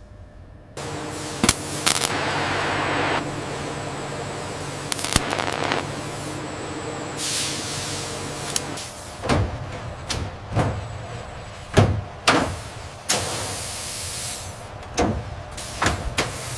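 Assembly-line machinery sound effects: a steady machine hum with two swells of hissing air, then a run of sharp, irregular knocks and clunks.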